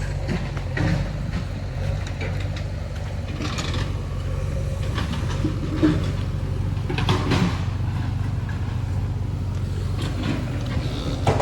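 A heavy diesel engine running steadily, with short bursts of clattering about three and a half seconds in, about seven seconds in and near the end.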